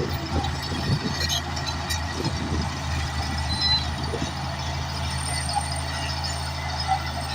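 Large bulldozer's diesel engine running at a steady pitch, with scattered short clanks and knocks of steel and rock.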